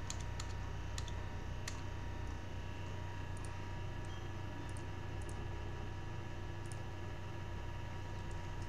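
Scattered clicks of a computer keyboard and mouse: several in the first two seconds, then a few fainter ones, over a steady low hum.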